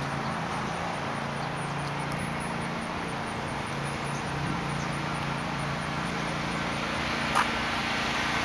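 Steady low hum of a distant motor or machine under outdoor background noise, with one sharp click about seven seconds in.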